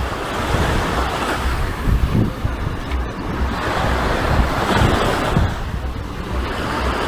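Surf washing onto a beach, with wind buffeting the microphone in low gusty rumbles.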